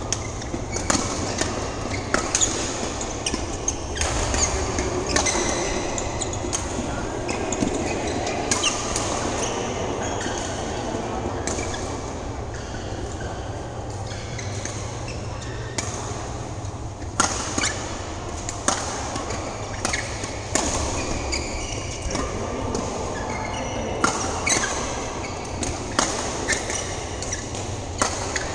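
Badminton rackets striking a shuttlecock in a rally: sharp pops at uneven intervals, sometimes several in quick succession.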